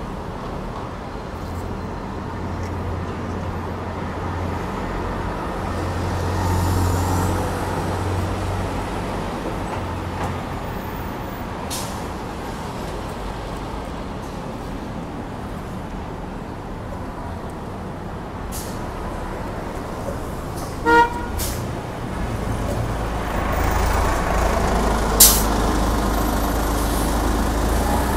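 A New Flyer D60 articulated diesel bus running in city traffic and pulling up close by, its engine a steady low rumble that grows heavier in the last few seconds. A short horn toot sounds about two-thirds of the way through, and a brief sharp air-brake hiss comes near the end.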